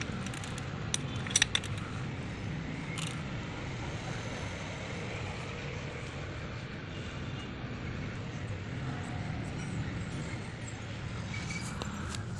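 A few light metallic clinks of hand tools on the engine, sharpest about a second and a half in and again near the end, over a steady low background rumble.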